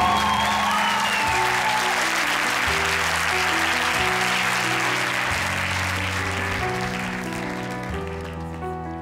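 Studio audience applauding over a piano accompaniment, the applause dying away near the end. A singer's held, wavering high note ends in the first second.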